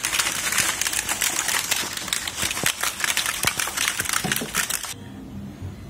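Crisp, hollow fried phuchka (panipuri) shells tumbling and clattering onto a pile on newspaper, a fast dense rattle of light brittle clicks that stops suddenly about five seconds in.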